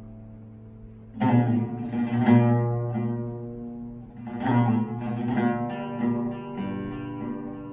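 Solo Sebastian Stenzel oud played unaccompanied: a held note fades for about a second, then a strong low pluck starts a slow melodic phrase of single plucked notes, each ringing on into the next.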